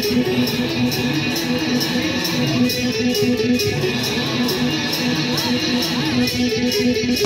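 Music with a steady, repeating beat.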